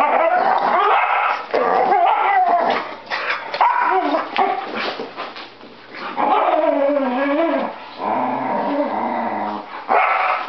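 A dog making loud play noises while wrestling with another dog: long, wavering growls and whines in bouts of a second or more, with short breaks, and a lower rumbling growl about eight seconds in.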